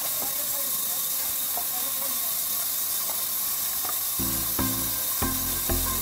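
A band saw blade cutting lengthwise through a hardwood baulk, making a steady high hiss. About four seconds in, a low pulsing drone joins it.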